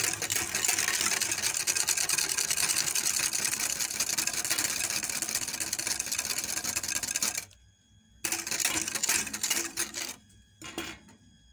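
Wire balloon whisk beating a thin egg yolk, sugar and milk custard mixture in a glass bowl: fast, steady clicking and rattling of the wires against the glass. The whisking stops about seven and a half seconds in, resumes for about two seconds, then gives one last short burst near the end.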